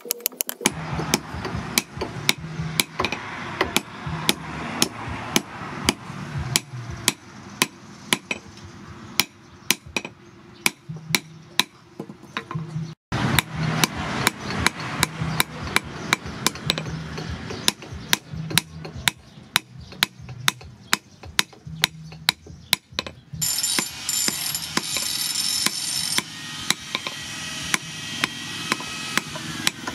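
A blacksmith's hammer repeatedly striking red-hot chainsaw-bar steel on a steel post anvil, sharp metallic blows at about three a second. A steady hiss joins the blows for the last six seconds.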